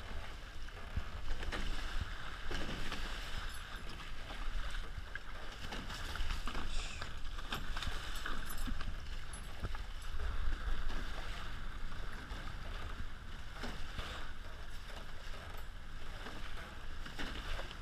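Water rushing and splashing past the hulls of a Hobie 16 catamaran sailing fast through chop, with irregular slaps of spray on the trampoline and wind rumbling on the microphone.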